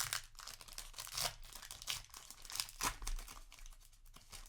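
Foil booster pack wrapper being torn open and crinkled by hand: a quick run of irregular crinkles and rips that die down near the end.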